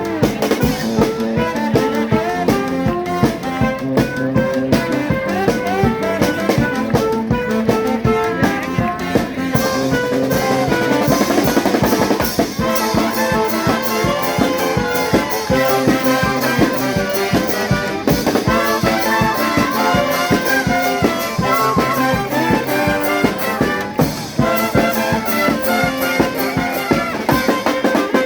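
Charanga brass band playing a lively tune: trumpets and trombones carrying the melody over a steady drum beat.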